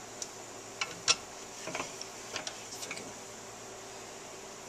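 Irregular light metal clicks and clinks from a steel C-clamp and socket being handled and set against a motorcycle's suspension linkage rocker to press a bearing, the sharpest about a second in.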